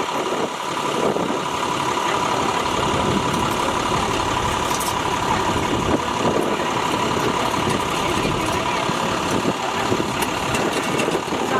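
An engine running steadily, with a steady high whine alongside.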